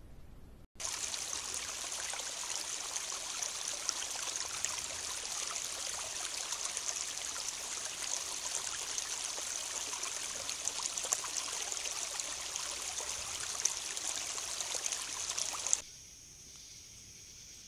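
Small woodland stream running over rocks, a steady rush of water picked up by a trail camera's microphone. It starts suddenly about a second in and cuts off suddenly near the end.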